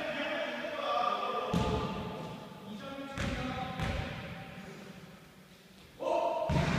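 A basketball bouncing on a hardwood gym floor: about four slow, irregular thumps, with players' voices calling in between.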